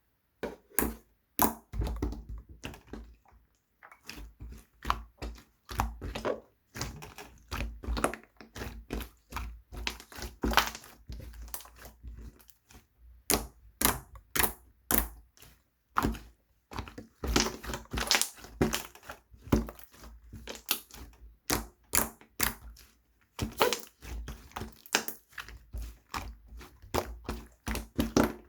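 Wood-glue slime being squished, pressed and stretched by hand, giving a dense run of irregular sharp clicks and pops with brief pauses.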